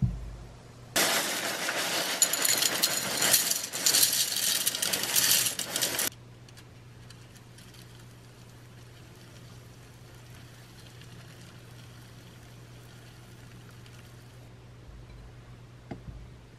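A ceramic bowl thumps down, then cornflakes pour into it in a dry, clinking rattle that lasts about five seconds and stops suddenly. After that comes a faint, steady pour of hot milk tea from a metal pot over the cereal for several seconds, and a light click near the end as a metal spoon is laid down.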